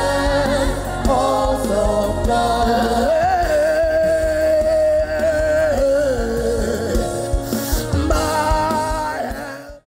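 Gospel worship song: a voice holds long, wavering sung notes over a steady backing accompaniment. The music fades and stops just before the end.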